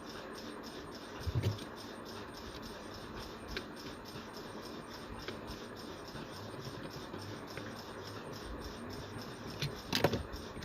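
Faint scratching and a few light clicks and taps of a wire being fitted to a switch terminal by hand, with a sharper cluster of clicks near the end, over a steady background hiss.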